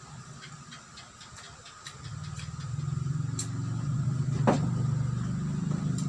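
A low engine hum swells in from about two seconds in and keeps going, over small clicks and smacks of eating. A sharp click comes a little after the middle.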